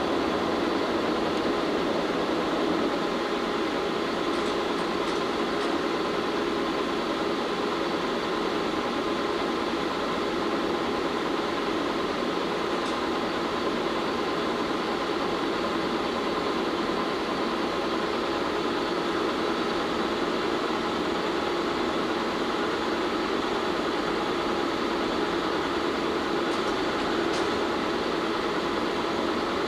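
1952 Bullard Cutmaster vertical turret lathe running under power: a steady hum of its main motor and gear drive at an even level, with a few faint clicks.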